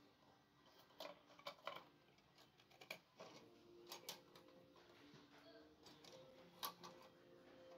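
Faint metallic clicks and light knocks from the parts of an old, rusty Feuerhand 275 hurricane lantern being handled: the burner fitted onto the tank and the globe frame tilted open. About half a dozen separate clicks, the sharpest one near the end.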